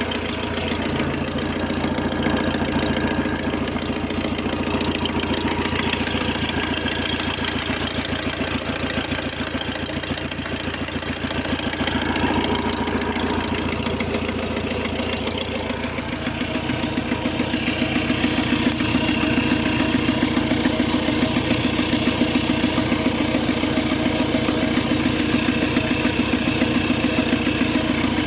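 Fiat Palio engine idling, with a rapid regular pulsing that grows stronger about halfway through. This is the strange noise from the front end that the owner cannot explain.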